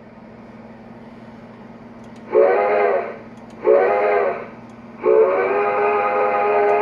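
Sampled steam locomotive whistle from a QSI QS-3000 sound system, played through the speaker of an O-scale Reading G3 Pacific model: two short blasts and then a long one, each a chord of several tones. A steady low hum runs underneath. In neutral, the whistle is used to trigger the locomotive's standing sound sequences.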